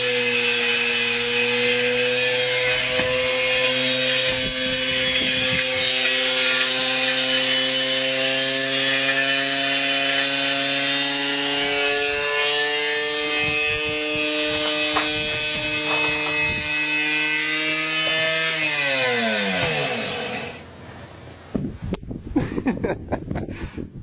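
Wrecked washing machine's electric motor still running on its own, a steady whining hum, then winding down in pitch and stopping near the end. Wind gusts on the microphone in the last seconds.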